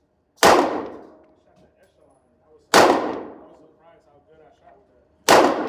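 Three handgun shots, spaced about two and a half seconds apart, each sharp crack ringing away over about a second.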